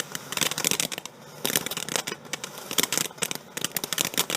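A firework crackling: a dense, irregular run of small pops and snaps.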